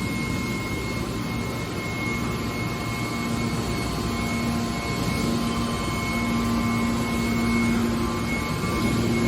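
Hydraulic metal press baler running: a steady machine drone from its motor and hydraulic pump, with a low hum that grows stronger from about three seconds in.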